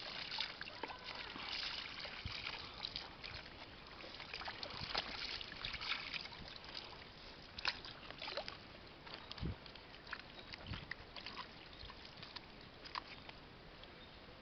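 Water sloshing and splashing in plastic basins as clothes are washed and wrung by hand and rubbed on a washboard, with many small, irregular splashes and drips.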